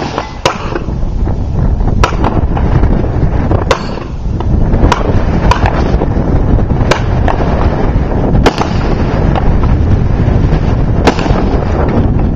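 Gunshots at an irregular pace, about nine in all, roughly one every one to two seconds, over heavy wind buffeting on the microphone.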